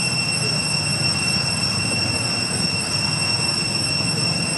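Cicadas droning: a steady, unbroken high-pitched whine over a low background rumble.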